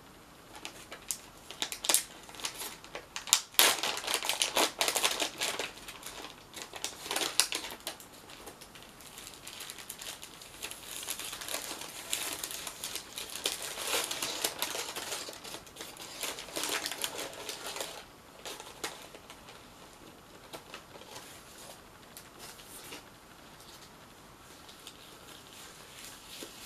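Paper wrapper of a pack of surgical gloves crinkling and rustling as it is unfolded and handled, in irregular bursts for most of the time, growing quieter near the end as a latex glove is lifted out.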